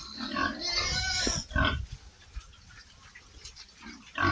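Pigs grunting and squealing, loudest in the first second and a half, then quieter, with a short loud call near the end.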